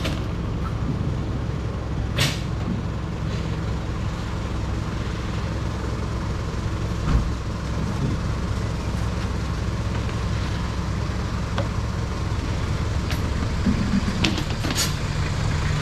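Truck engine idling steadily, with a few knocks and clatters from a stall table being set up on its metal frame. The loudest is a single thump about seven seconds in, and more clatter comes near the end.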